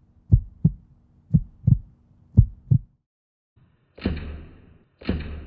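A heartbeat sound effect: three double thumps over a low steady tone. After a short pause come three sharp smacks about a second apart, as fingers flick a bare forearm.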